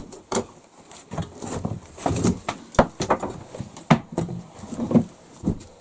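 Cast-iron stove grate being handled and set into a brick firebox: a run of sharp, uneven clanks and knocks with scraping in between.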